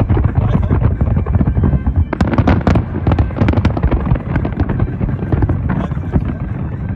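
Large aerial fireworks barrage: many shells bursting in quick succession, a continuous run of booms with sharp cracks and crackling, the sharpest cracks bunched around two to three seconds in.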